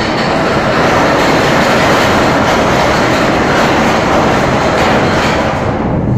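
Ship's steel anchor chain running out by gravity over the windlass gypsy and down the hawse pipe: a loud continuous clatter of links that dies down near the end.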